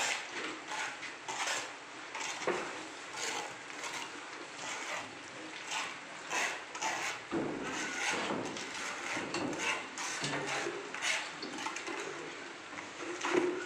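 Irregular scrapes and knocks of sand being tipped from a plastic bucket and worked by hand on a concrete floor.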